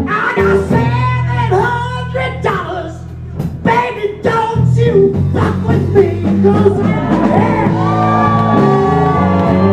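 Live blues band playing loudly, with saxophone, electric guitars, bass and drums, and a voice shouting and singing over it. A long high note is held from past the middle to the end.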